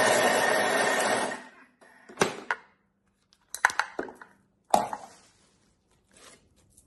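Thermomix blade whirring at high speed, chopping Parmesan and garlic into crumbs, then cutting off abruptly about a second and a half in. A few sharp clicks and knocks follow as the lid is unlocked and lifted off the bowl.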